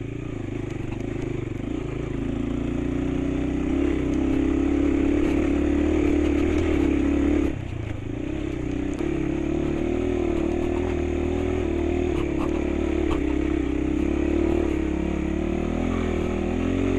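Motorcycle engine running steadily under load on the ride, its pitch creeping up slightly over the first several seconds. About seven and a half seconds in it drops off briefly, then picks up and holds steady again.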